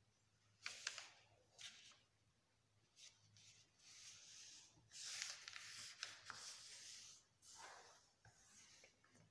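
A sheet of paper rustling and sliding on a wooden tabletop as hands press and crease a fold, in faint irregular swishes with a few sharp crackles, starting about half a second in.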